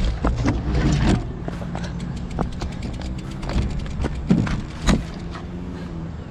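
Wind on the microphone and tyre noise as a road bike rolls off the pavement onto the gravel shoulder, over a steady low hum. Scattered clicks and knocks come through, the sharpest two about four and five seconds in.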